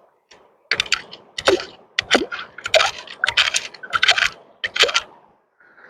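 Loose rocks clacking against one another as they are pulled out of a bedrock crevice and set on a pile: a quick, irregular run of sharp knocks over about four seconds.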